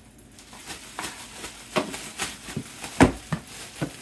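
Clear plastic oven bag with a spoonful of flour inside being shaken up and down, the plastic crinkling and swishing in uneven strokes. The loudest stroke comes about three seconds in.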